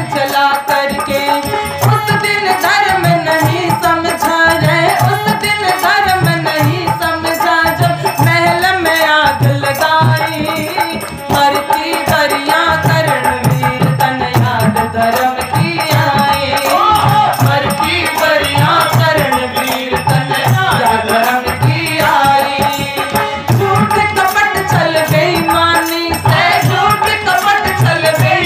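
Devotional bhajan: a woman singing over harmonium, with a dholak drum keeping a steady, even beat.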